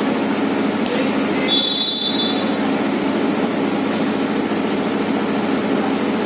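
A single whistle blast lasting about a second, starting about a second and a half in, over a steady low rumble of background noise.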